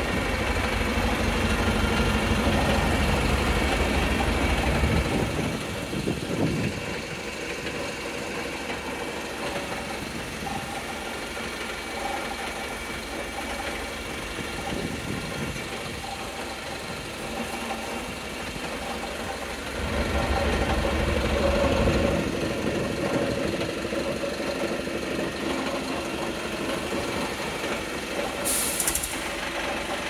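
Rear-mounted diesel engine of a Volvo B5TL Euro 6 double-decker bus idling, with the strange knocking sound from the engine that is in question, cause unknown. A deeper, louder rumble rises over the idle for the first few seconds and again about twenty seconds in.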